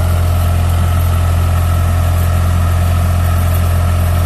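Yanmar GC70 combine harvester's diesel engine running steadily with a deep, even hum. A steady whine comes in over it from the start as the hydraulics raise the machine's body on its tracks.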